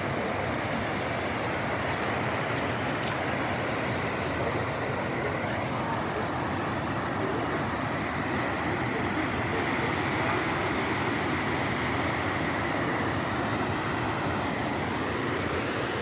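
Steady rushing of a waterfall, river water pouring over rocks in rapids.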